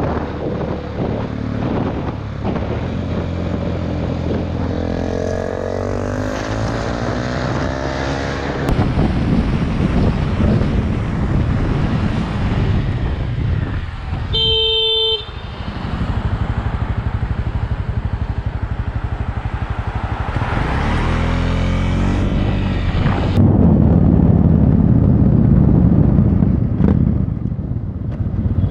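Motorcycle engines running and revving as heard from the riders' own bike cameras, the pitch rising and falling through the gears. A single short horn blast sounds about halfway through.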